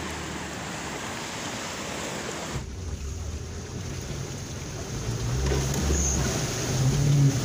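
Wind noise on a phone microphone outdoors. About two and a half seconds in it cuts to a 4x4's engine heard from inside the cab, running as the vehicle drives, its note rising and growing louder near the end.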